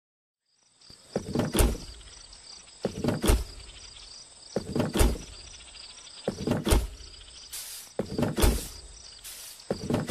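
A slow, even beat of deep thuds, one about every 1.7 seconds, over a steady high chirring like crickets. Short hissing bursts fall between the later beats.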